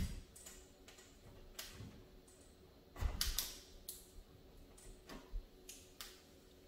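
Plastic wall anchors being pushed by hand into drilled holes in drywall. Scattered small clicks and knocks, with a short cluster of louder knocks about three seconds in.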